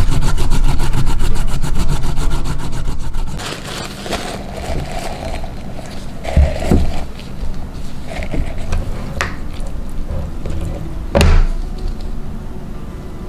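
Carrot being grated on a plastic grater: loud, rapid rasping strokes for about the first three and a half seconds. Then quieter rustling of a filter bag being opened and fitted into a glass beaker, with a few knocks, the loudest about eleven seconds in.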